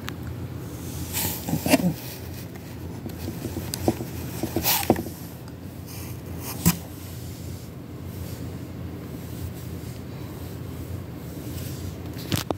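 Handling noise: a few short rustles and light knocks over a steady low hum, the loudest about two seconds in and around the middle.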